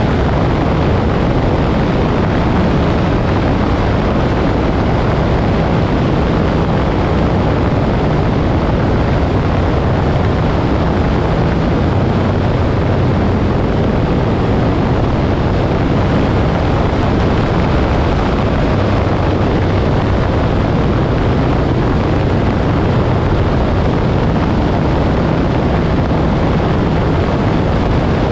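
Moto Guzzi Griso's V-twin engine running steadily while the motorcycle rides along at speed, with wind and road noise rushing over the microphone.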